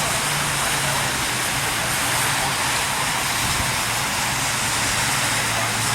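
Steady radio static: an even, loud hiss from a receiver between transmissions, with a faint low hum underneath.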